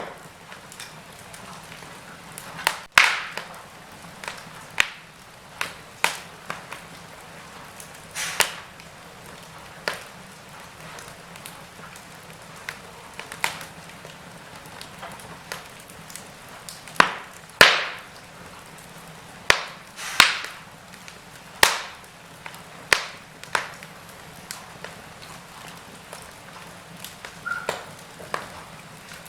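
Wood fire burning in a fireplace: a steady soft hiss with irregular sharp crackles and pops, a dozen or more, the loudest about 3 seconds in and again around 17 to 20 seconds in.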